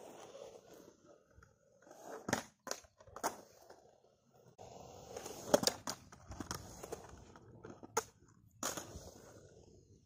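Skateboard on a concrete quarter pipe: urethane wheels rolling with a rough hiss, and the metal trucks knocking onto the ramp's coping for axle stalls, giving about half a dozen sharp clacks.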